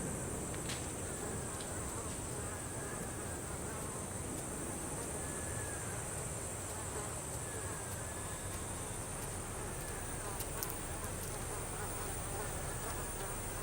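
A steady, high-pitched insect chorus, with faint short calls repeating about once a second beneath it.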